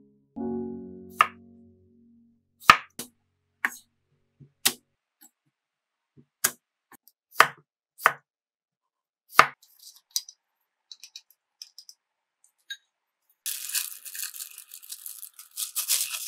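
Kitchen knife slicing through a cucumber onto a wooden cutting board: single crisp chops, about one every second or so. Near the end, a plastic bag crinkling steadily as hands handle the vegetables inside it.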